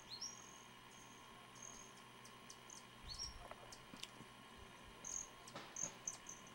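Faint, high-pitched hummingbird chip notes, short and irregular, with a quick rising squeak just after the start and another about three seconds in, and the chips coming thicker near the end.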